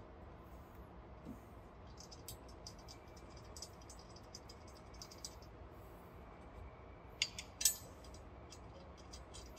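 Light metallic clicks and taps of a stainless steel pump casing and its casing bolts being fitted by hand, scattered through, with two sharper clicks close together near the end.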